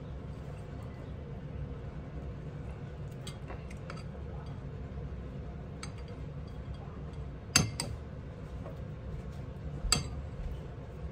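A metal spoon clinks against a glass mixing bowl several times while thick batter is spooned over a skewered sausage and cheese. The loudest clink comes about two-thirds of the way through and another near the end, over a steady low hum.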